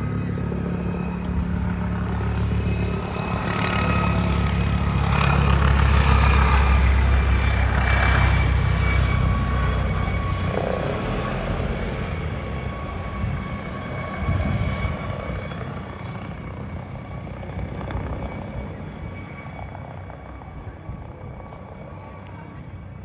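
London's Air Ambulance Airbus H135 helicopter flying low overhead as it comes in to land: a deep rotor rumble with a steady turbine whine above it. It is loudest about a quarter of the way in, then fades as it drops behind the rooftops.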